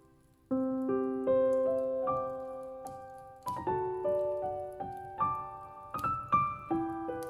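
Slow solo piano music, single notes and small chords each ringing out and fading, about two a second; it comes in about half a second in after a brief near-silent gap.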